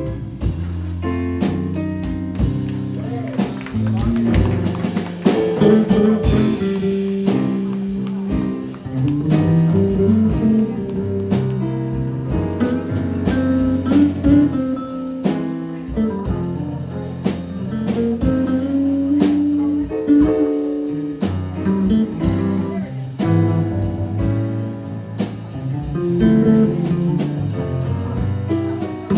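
Live band playing a slow ballad's instrumental break: electric guitar over keyboard and drums, with no vocals.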